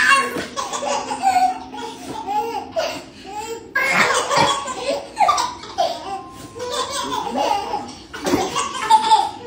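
Babies laughing and squealing in short bursts of giggles, several at once. The loudest bursts come at the start, about four seconds in, and near the end.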